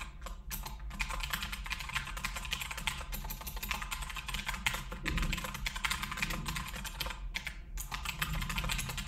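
Fast typing on a computer keyboard: a steady stream of key clicks with a few short breaks, about seven seconds in.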